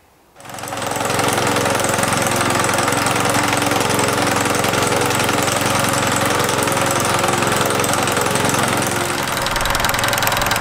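Single-axle walk-behind tractor's engine running steadily under load while its front sickle-bar mower cuts tall grass. The sound fades in about half a second in.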